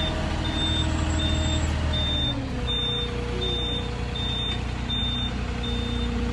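Moffett truck-mounted forklift running while it carries a load, its backup alarm beeping steadily about one and a half times a second. The engine note drops about two seconds in.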